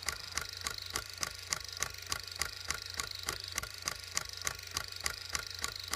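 Even, rapid ticking, about three ticks a second, over a steady low hum.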